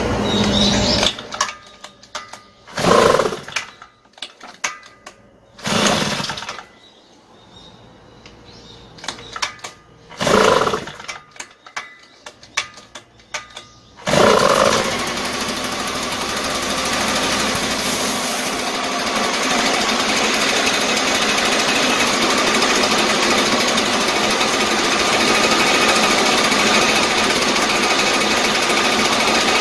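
Shindaiwa EB803 backpack blower's two-stroke engine being started after reassembly: several short, loud bursts with quiet gaps as it is pulled over, then about 14 seconds in it catches and keeps running steadily.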